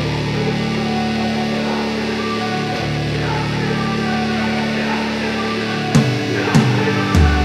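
Background rock music: a sustained, guitar-heavy instrumental passage with no singing, with drum hits coming in about six seconds in.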